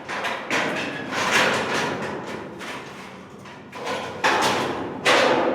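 Several irregular metal knocks and clanks from steel being handled or struck, each ringing briefly before dying away.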